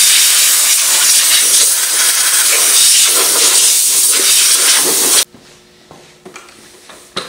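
Compressed-air blow gun blowing a steady, loud hiss of air, cut off suddenly about five seconds in, followed by a few light knocks.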